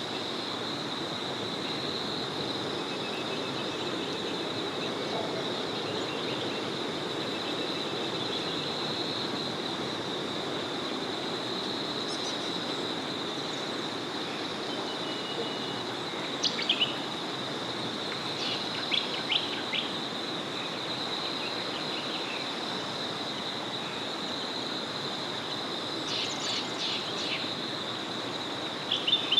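A small forest river flowing steadily, under a constant high-pitched drone, with short bursts of bird chirps a few times, the loudest about halfway through and near the end.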